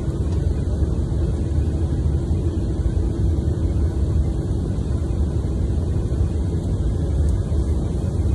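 Cabin noise of a taxiing Boeing 737-800, its CFM56-7B turbofan engines at low taxi power: a steady low rumble with a faint steady hum heard through the fuselage.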